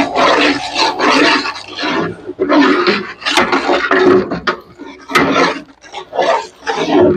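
Large metal ladle scraping and stirring in a big metal cooking pot, in rasping strokes about a second apart, with two sharp knocks of metal on metal.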